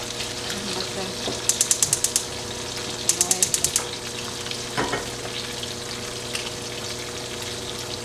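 Brisk scrubbing at a kitchen sink: two quick runs of about seven rapid back-and-forth strokes, cleaning grease off stove parts, over a steady low hum. A single knock comes near five seconds in.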